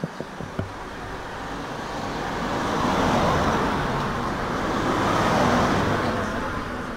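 Road traffic passing close by: a rush of engine and tyre noise that builds to a peak about three seconds in, eases, swells again about five and a half seconds in, then fades.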